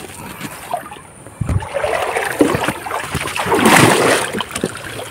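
Shallow river water splashing and sloshing as someone wades and works through it, building to a louder burst of splashing about three and a half seconds in.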